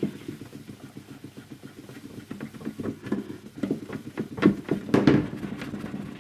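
A polishing pad rubbing plastic polish into the Astor BPJ radio's clear plastic dial lens in quick circular strokes. It makes an uneven scrubbing sound, with a few louder swipes a little past the middle.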